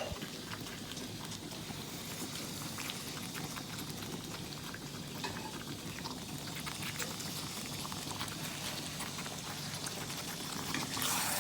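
Spicy chicken masala simmering in a pot, a steady bubbling with many small scattered pops. A louder hiss comes in near the end.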